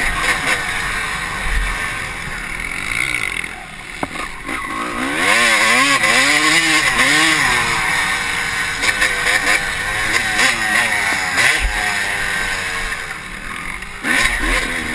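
Honda CR250 two-stroke engine ridden hard, its pitch rising and falling again and again as the throttle opens and shuts, with a brief drop in level about four seconds in when it comes off the throttle. Wind rushes over the helmet-mounted microphone.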